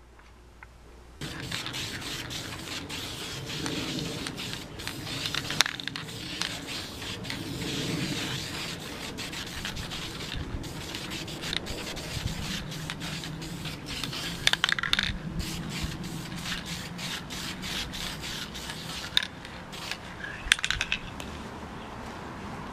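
Aerosol can of primer spraying parts, hissing in repeated short bursts, starting about a second in.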